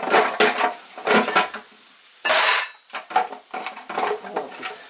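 Metal clinks and scrapes of a small crowbar prying at an engine's oil pan to break it loose from the block, with a louder scraping burst about halfway through.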